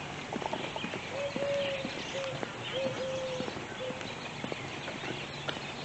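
Footsteps of a person walking, with a faint far-off call in the background: four drawn-out, even tones between about one and four seconds in.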